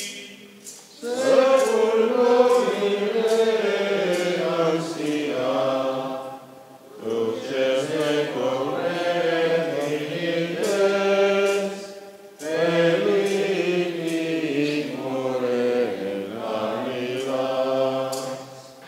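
Men's voices chanting an unaccompanied Latin hymn in three long sung phrases, each separated by a short pause for breath.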